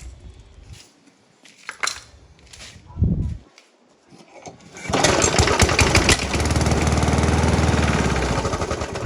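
Briggs & Stratton 375-series lawn mower engine starting about five seconds in, running for about three seconds, then winding down as it is shut off, the kill switch now working after its cable was refitted into the ignition. A brief low thud comes about three seconds in.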